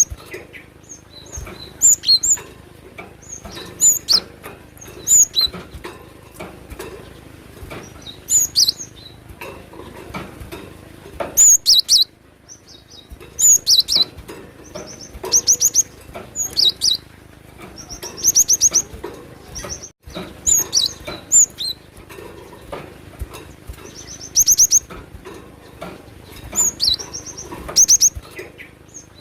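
Cinereous tit (glatik batu) singing: short bursts of high, rapid repeated notes and trills, coming every second or two.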